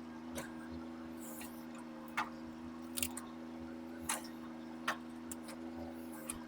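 Mini excavator's diesel engine running at a steady speed, with a handful of sharp clicks scattered through it.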